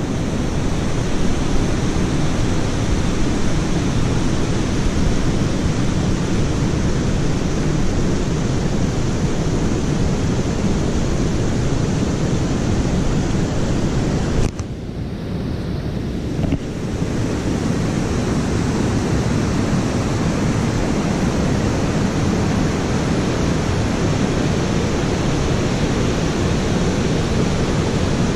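Steady rush of fast-moving river water mixed with wind on the microphone. It dips briefly about halfway through.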